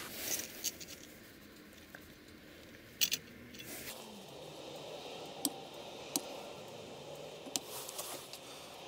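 Handling noise with scattered short, sharp metal clicks and taps, the loudest about three seconds in, as a steel ruler and a knife blade with a brass guard are set against a bench vise.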